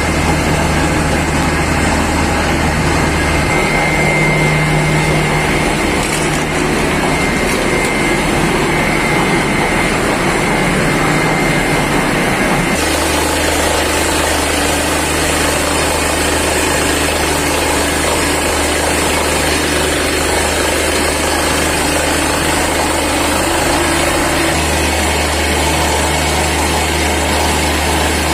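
Truck-mounted borewell drilling rig running continuously and loudly, a steady engine and machinery noise. Its tone shifts a few times.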